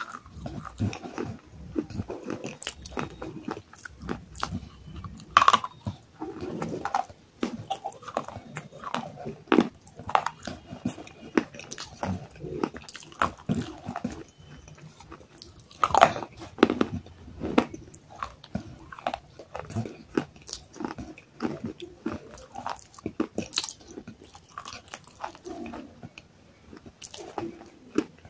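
Close-miked biting and chewing of baked clay pot pieces: a steady run of irregular, sharp crunches with grinding chewing in between, a few bites louder than the rest.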